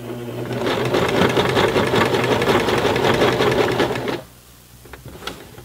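Baby Lock BL9 mechanical home sewing machine stitching a denim jeans hem at a run. The needle strokes come rapid and even from about half a second in and stop suddenly after about four seconds, followed later by a single light click.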